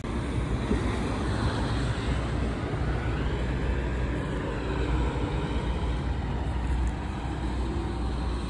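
Roadside traffic noise: a steady low rumble, with a vehicle passing by between about three and five seconds in.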